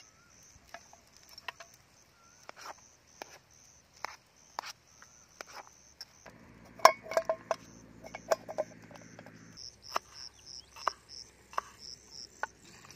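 Insects chirping in a fast, steady pulse, with irregular knocks and metallic clinks of a cooking utensil against a pot as food is stirred. The clinks are busiest and loudest a little past the middle, where a low hum also sounds for about three seconds.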